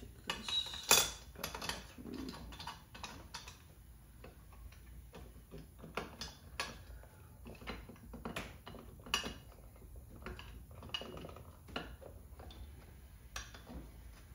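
Metal parts of a two-barrel Motorcraft carburetor clinking and knocking as the top is fitted and lined up on the body by hand: an irregular scatter of light clicks and knocks, the loudest about a second in.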